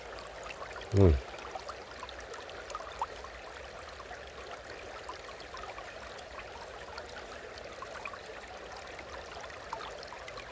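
Steady rushing of waterfall water. About a second in comes one short human vocal sound that falls in pitch.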